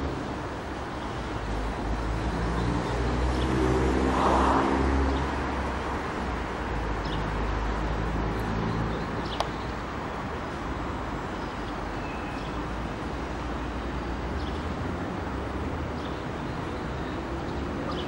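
Urban street traffic: a car drives past close by, its engine rising to a peak about four seconds in and then fading, over a steady background hum of traffic. A single sharp click about nine seconds in.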